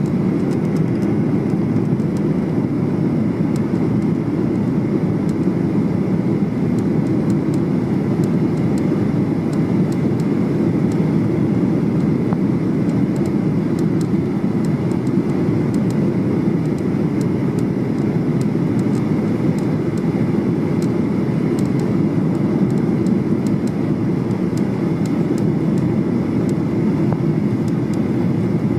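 Steady cabin noise inside a Boeing 737-800 descending with its flaps extended: a low, even rush of airflow and the CFM56-7B engines. Faint, irregular creaking ticks from somewhere in the cabin trim run through it.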